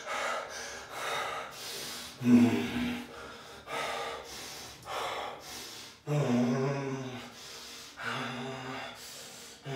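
A man gasping and breathing hard, about one sharp breath a second, with a few voiced moans, from the pain of sitting in ice-cold bath water.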